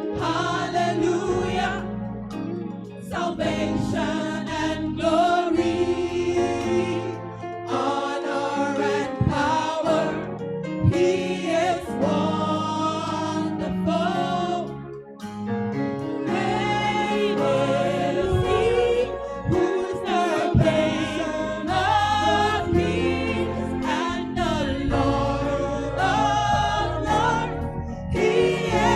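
Gospel choir singing a hymn in harmony, in sung phrases with short breaths between them.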